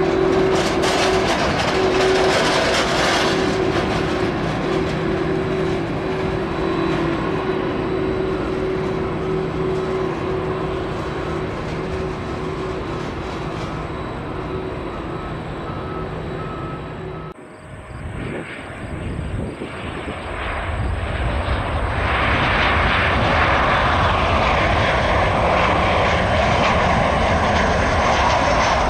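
Boeing 747 freighter's jet engines running at low power with a steady whine over the rush as the jet rolls on the runway. The sound breaks off about two-thirds of the way through, and the jet noise of a Boeing 737-700 on final approach builds to a loud rush, with a slowly falling whine near the end.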